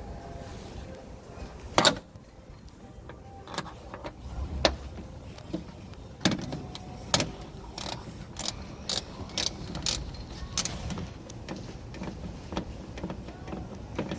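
Irregular sharp clicks and knocks of a T20 Torx driver working the hidden screw that holds a Mercedes CLS door handle. The loudest click comes about two seconds in, and a quicker run of lighter clicks follows in the middle.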